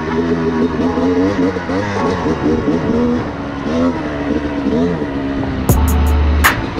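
Honda CR250R two-stroke dirt bike engine revving up and falling back again and again as it is ridden along a dirt trail. Near the end a heavy bass beat with sharp clicks comes in over it.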